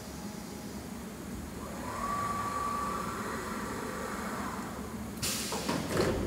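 Alfa CNC woodworking machine running: a steady low machine hum, with a steady whine for a couple of seconds in the middle and a loud hiss about a second long near the end.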